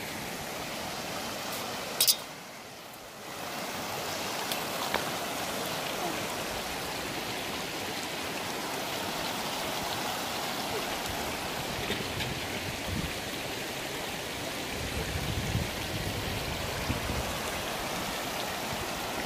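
Shallow river rapids rushing over stones: a steady rush of water. A single sharp click about two seconds in.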